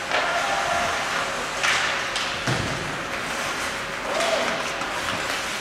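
Ice hockey in play in a rink: skates scraping the ice and sticks and puck clacking, with a few sharp knocks around the middle, over a wash of arena noise and short shouts.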